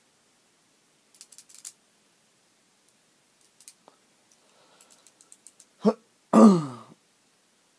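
Small metal parts of a disassembled balisong (washers, pivot screws and handle pieces) clicking lightly as they are handled. Near the end comes a short vocal sound from the person, then a longer, louder one that falls in pitch.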